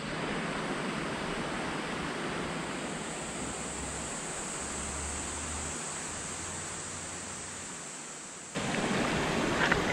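Steady rushing of a shallow river, an even hiss of flowing water that fades slightly. About eight and a half seconds in it cuts off abruptly and a louder, different sound takes over.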